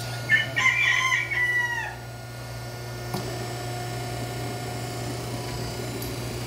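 A rooster crowing once: a pitched call of about a second and a half that falls in pitch at the end. A steady low hum runs underneath.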